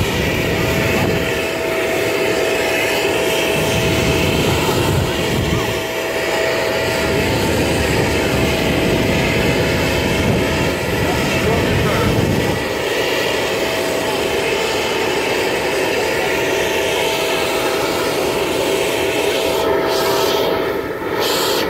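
Steady whine and rush of a jet aircraft's turbine, with one constant high tone held the whole time, under a murmur of voices.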